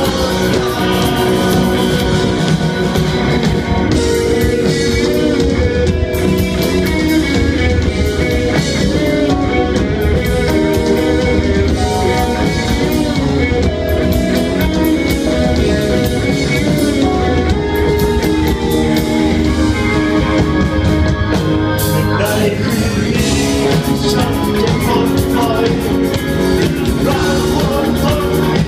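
Live rock band playing: electric guitar, bass guitar and drums, with a man singing through the PA.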